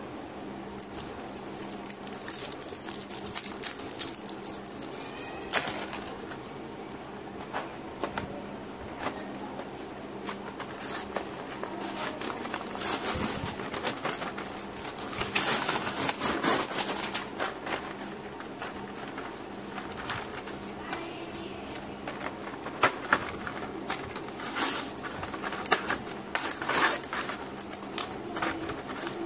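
Plastic blister packaging and card backing crinkling, clicking and tearing as a modelling clay kit is unpacked by hand. The rustling comes in irregular bursts: a louder stretch near the middle and a few sharp clicks toward the end.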